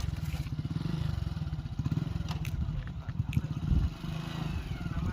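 Diesel engine of a JCB 3DX backhoe loader running steadily, a low rapid throb with a few light clicks over it.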